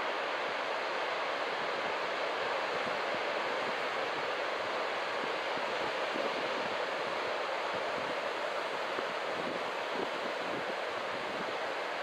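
Ocean surf: a steady rush of waves breaking and washing in, with wind buffeting the microphone.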